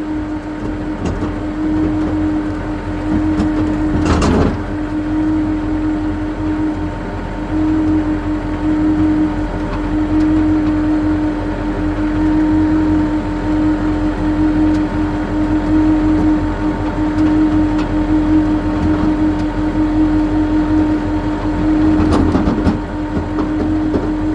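Tow truck's engine running with a steady, unchanging drone. There is a clunk about four seconds in and another near the end.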